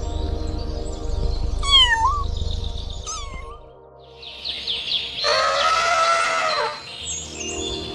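A cat meowing: one long meow about five seconds in, after a couple of short chirping calls, over steady background music.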